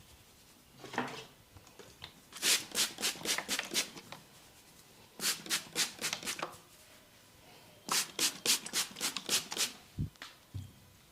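Hands working quickly over a head and hair in a head massage: three runs of rapid rubbing strokes, about four a second, each run lasting a second and a half to two seconds.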